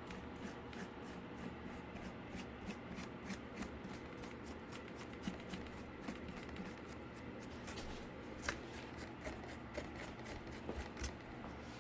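Dry paintbrush scratching across cardboard in quick, light strokes, about four short scratchy strokes a second, stopping about a second before the end.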